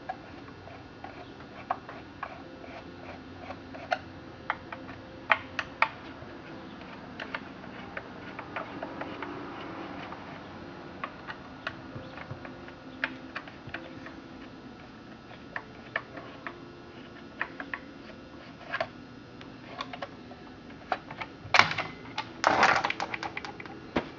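Scattered clicks and taps of hand tools on screws and metal as the top cover of a Husqvarna 2100 XP chainsaw is taken off, with a louder burst of clattering near the end.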